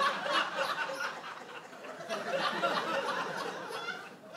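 Audience laughing after a joke, a crowd of overlapping laughs that dies down toward the end.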